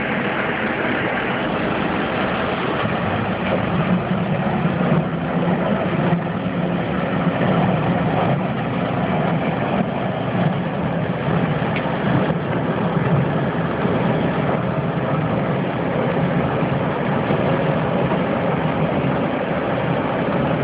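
Heavy engine of snow-clearing equipment running steadily, with a low even drone.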